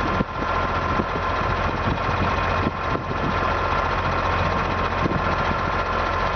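A heavy engine running steadily at idle, a constant low hum with a steady high tone over it.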